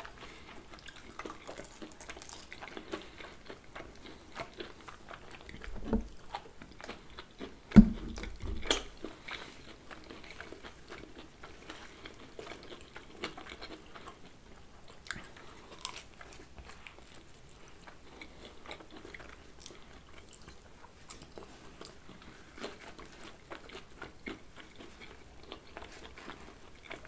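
Two people chewing pizza close to the microphone: wet chewing and small mouth clicks throughout. A sharp thump about eight seconds in is the loudest sound, with a smaller one about two seconds before it.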